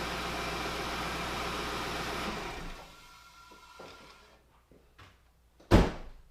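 2004 Lincoln Town Car's 4.6-litre V8 idling just after being restarted following an EGR tube repair, then dying away about two and a half seconds in. A few faint knocks follow, and a single sharp, loud thump comes near the end.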